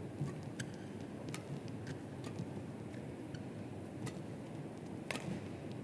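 Badminton rally: sharp clicks of rackets striking a shuttlecock, a few times at irregular intervals with the strongest hit near the end, over a low steady arena hum.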